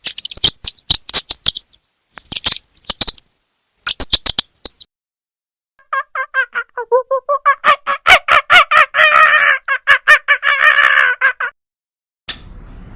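A chicken clucking: a fast run of short, pitched calls lasting about five seconds, after several seconds of sharp clicks and taps.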